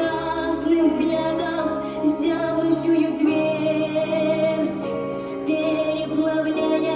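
A female voice singing, holding long notes with vibrato over instrumental accompaniment. The bass line shifts to a new note about three seconds in.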